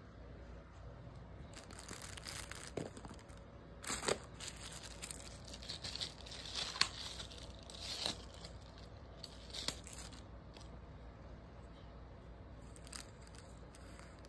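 Thin plastic wrapping crinkling and tearing, with a few sharp plastic clicks: a plastic spoon wrapper being torn open and a clear plastic lid taken off a takeaway bowl.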